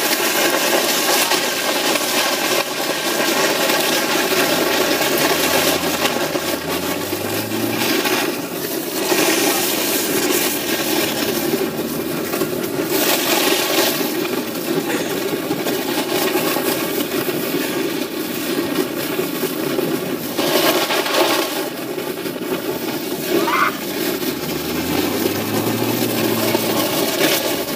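A car driving along a snowy road while towing a sledge: a steady rushing noise of engine and tyres, with the engine note rising twice.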